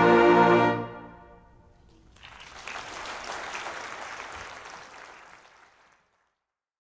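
A school concert band's final held chord, heavy with brass, cuts off just under a second in and rings away in the hall. Audience applause follows about a second later and fades out.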